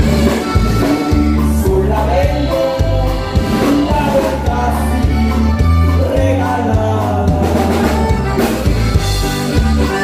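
Norteño dance music from a band, with a steady, loud bass line under a melodic lead.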